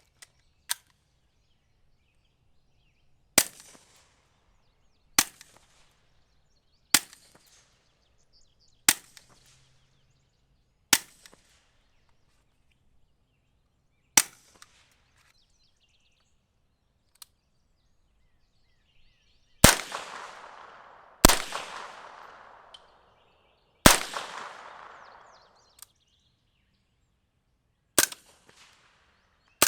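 Suppressed gunshots, about a dozen single shots a couple of seconds apart, each a sharp crack. Three shots about two-thirds through are louder and trail off with a long echo of about two seconds.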